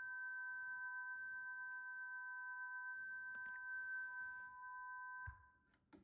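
Dual-tone intermodulation test signal from a test record: two steady sine tones, 1 kHz and about 1.55 kHz, played on a turntable with an Audio-Technica VM540ML cartridge. A couple of faint ticks come through it, and the tones cut off with a low thump a little over five seconds in.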